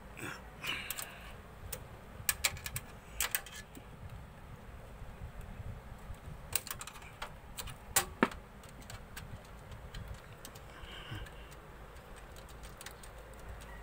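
Irregular clicks and knocks of cables and plastic connectors being unplugged and handled inside a desktop PC case, the loudest clusters about two to three seconds in and about eight seconds in.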